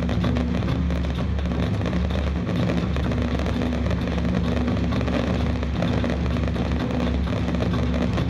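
Fireworks crackling densely over a steady low rumble, with music faintly underneath.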